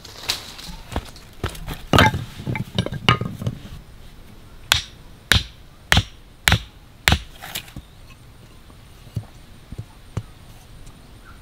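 A tool striking repeatedly in sharp knocks: a cluster of quicker blows, then five strong, evenly spaced strikes a little over half a second apart, then a few light taps near the end.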